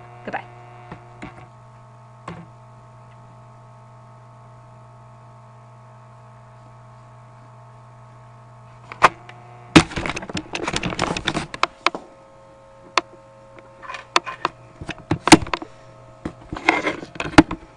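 Steady electrical hum from the recording setup. From about halfway through, clusters of clicks, knocks and rubbing as the webcam and its microphone are handled and moved, the loudest knock a little after three-quarters of the way through.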